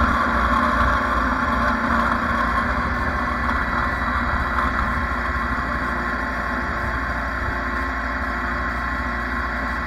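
Lawn mower engine running steadily, easing off slightly in loudness over the seconds.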